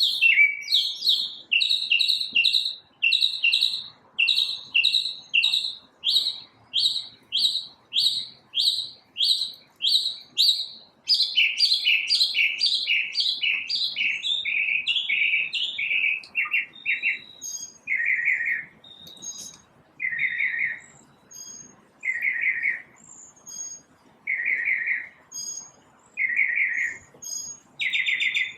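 A single songbird singing in repeated phrases. A long series of clear, evenly spaced chirps, about two a second, speeds into a faster run about halfway through. It then changes to short trilled bursts every couple of seconds.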